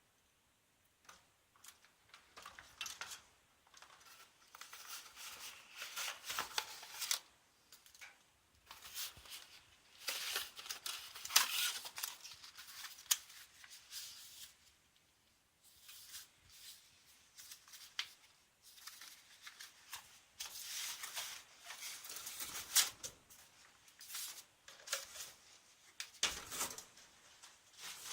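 Packaging being handled during an unboxing: irregular rustling, scraping and clicking of cardboard and plastic, with short quiet gaps between bursts.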